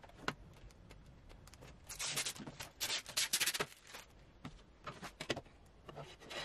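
Thin clear plastic cover sheet of a picture frame rustling and scraping as it is handled, with a few sharp clicks; the densest crinkling comes about two seconds in and lasts a little over a second.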